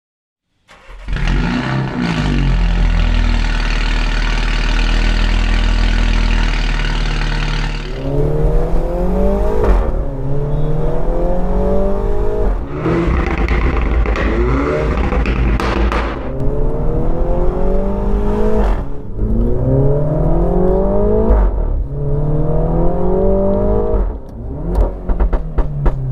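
Mini Cooper S JCW's turbocharged four-cylinder engine through its valved JCW sports exhaust, loud: it holds a steady note for about seven seconds, then is revved hard again and again, each rise in pitch lasting about two seconds and breaking off sharply.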